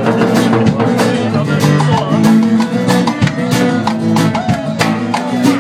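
A live band playing, with guitar, bass and drums, with steady, evenly spaced drum and cymbal hits over sustained bass notes.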